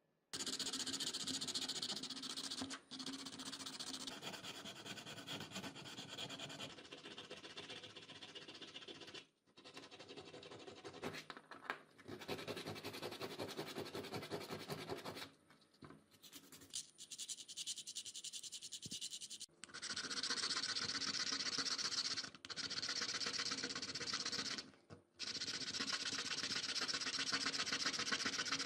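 Abrasive scraping and rubbing on a hard surface, in long runs that stop briefly several times, with a weaker, patchy stretch about halfway through.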